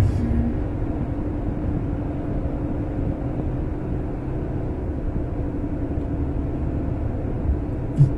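Steady road and engine rumble heard inside a moving vehicle's cabin at highway speed, with a short thump near the end.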